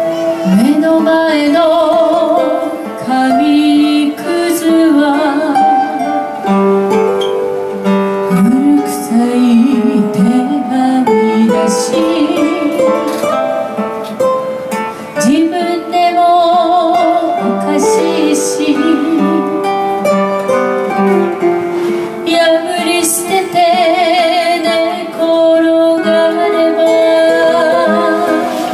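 Two acoustic guitars playing a slow ballad while a man sings over them, his held notes wavering with vibrato.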